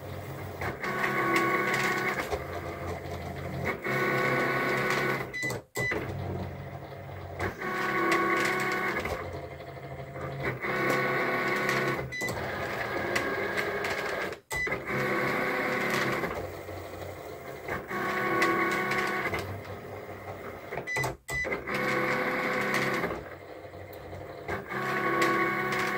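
Cricut electronic cutting machine cutting felt, its motors whirring as the blade carriage moves across the mat and the mat feeds. The motor whine comes in repeated runs of a second or two with short pauses between them.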